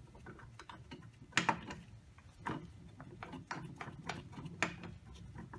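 Scattered light metal clicks and knocks, a few louder ones about a second apart, as bolts and an idler pulley bracket are handled and fitted onto a water pump by hand.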